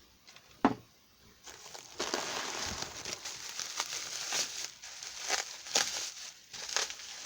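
Bubble wrap crinkling and crackling as a packed item is handled and unwrapped, after a single sharp tap about half a second in.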